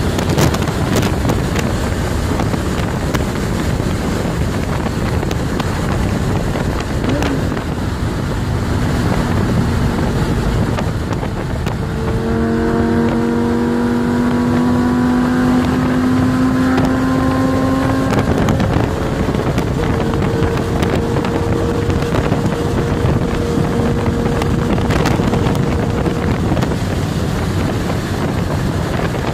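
Steady wind and road roar inside a Lamborghini's cabin at motorway speed, with the engine's drone underneath. From about 12 to 18 seconds in, the engine note stands out, rising slightly in pitch.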